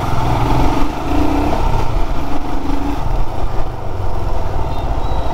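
Royal Enfield Himalayan's 411 cc air-cooled single-cylinder engine running steadily at low speed while the motorcycle is ridden.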